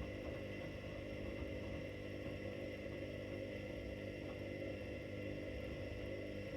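Front-loading washing machines running with a steady motor hum.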